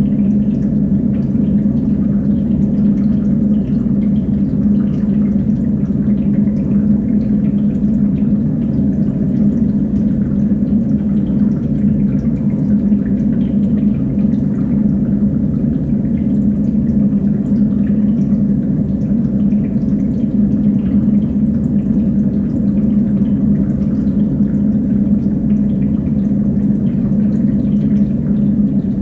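Water running and trickling steadily through a stacked, compartmented acrylic fish-tank system, over a constant low hum.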